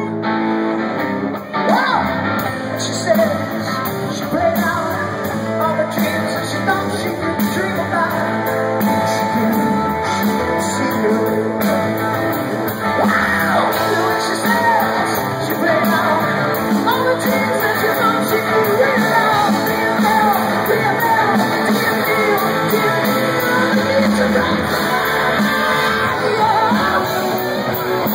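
Live rock band playing loud: a male singer singing over electric guitars and drums. Heard from the audience through a phone's microphone.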